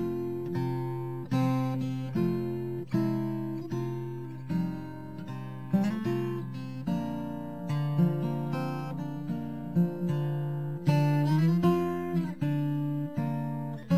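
Background music on acoustic guitar: plucked notes and strummed chords, each starting sharply and fading, changing every second or so.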